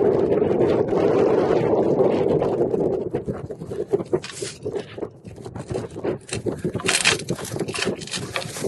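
Wind rushing over the microphone for about the first three seconds, then a run of irregular scrapes and crunches.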